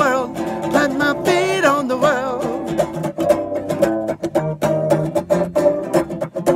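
A country-style song on plucked string instruments. In the first two seconds a voice holds a wavering note over the picked strings, then the strings play on alone.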